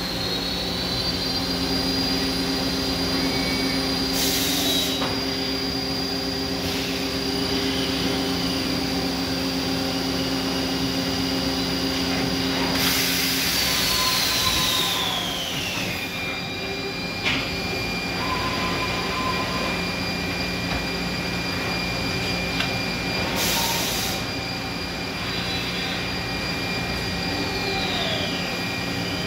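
Okuma Multus U4000 multitasking CNC lathe moving its axes with no workpiece in the chuck. Servo drives whine at steady high pitches that glide down as the B-axis milling head slows and swivels, with a few short bursts of hiss.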